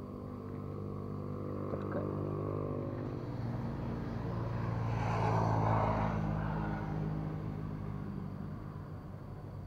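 A motor vehicle driving past: a steady engine hum with tyre noise that grows louder to a peak about five to six seconds in, then fades away.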